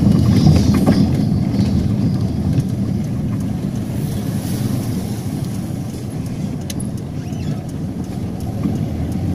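Car moving slowly along an unpaved dirt road, heard from inside the cabin: a steady low rumble of engine and tyres, easing a little in the second half.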